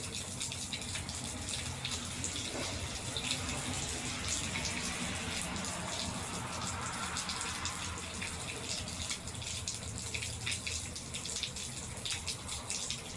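Rainwater running and dripping off a roof gutter: a steady splashing with many small drip ticks.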